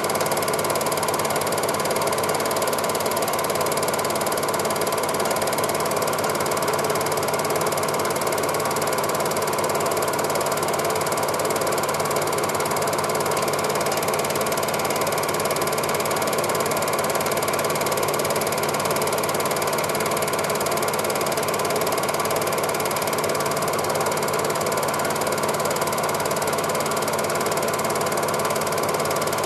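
Cine film projector running: a steady, unchanging mechanical clatter from its mechanism.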